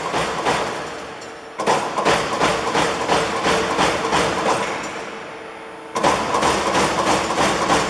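LVD Delta 1250 LB CNC punch press punching sheet metal in rapid runs of strokes, about five or six a second. The strokes die down briefly about a second in and again around five seconds in, then start up again.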